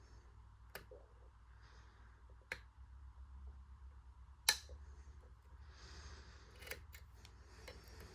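A handful of sharp metallic clicks and taps from lock picks working the pins of a 6-pin CISA dimple padlock, the loudest about four and a half seconds in.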